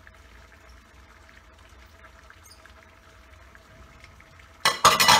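Faint pouring as pineapple chunks and juice slide from a bowl into a sauté pan. Near the end there is a sudden loud clatter of a utensil knocking against the bowl.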